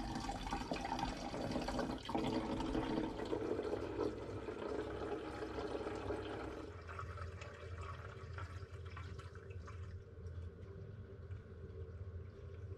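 Apple mead running out of a siphon tube into a plastic funnel with a mesh sieve, a steady trickle and splash of liquid filling the vessel below as the brew is racked off its sediment. The sound drops quieter about seven seconds in.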